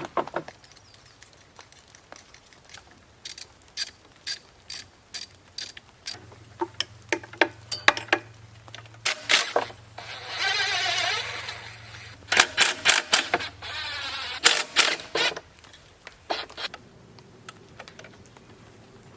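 A run of sharp mechanical clicks and knocks, with two longer ratcheting stretches in the middle and a low steady hum under the middle part.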